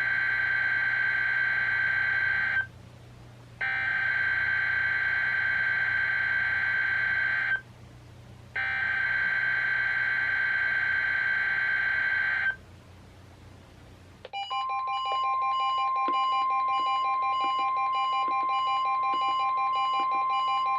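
NOAA Weather Radio SAME data header: three long screeching bursts of digital tones, each about four seconds long with a second's pause between. After a brief lull, the steady 1050 Hz warning alarm tone begins about 14 seconds in. Alongside it, weather radio receivers sound their own pulsing alert beeps as the Required Weekly Test activates them.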